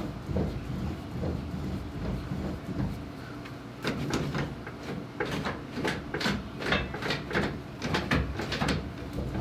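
Clicks and clunks from a Dodge Dart's freshly installed steering column as the wheel is turned and a lever on the column is worked. A quick run of sharp clacks comes in the second half.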